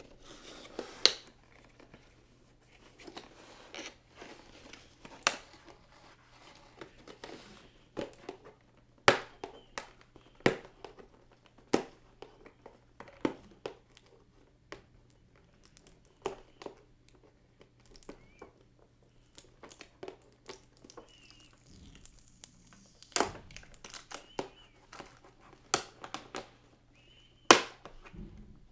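Plastic and cardboard packaging of a boxed action figure being handled and opened: irregular crinkling, tearing and sharp snaps, over a faint steady hum.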